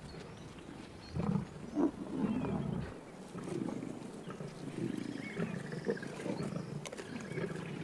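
Male lions growling over a freshly killed buffalo calf, a run of low, rough growls that is loudest between one and three seconds in and then comes in shorter, irregular bouts.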